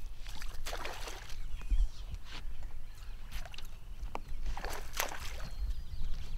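Water sloshing against a fishing boat's hull, with an uneven low rumble of wind on the microphone and a few brief rushes of noise.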